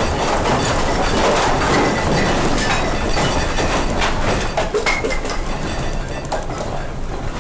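Earthquake shaking a building: a loud continuous rumble and rattle with many clattering knocks of loose objects, easing off over the last few seconds.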